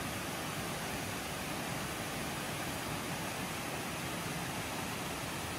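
Waterfall and rocky stream cascade rushing steadily.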